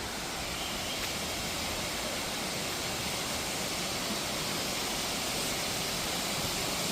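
Water falling at an artificial waterfall: a steady rushing hiss that grows slightly louder.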